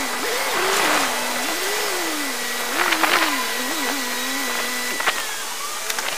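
Vehicle engine running while driving, its revs rising and falling again and again, over steady wind and road noise, with a faint high whine in the first few seconds.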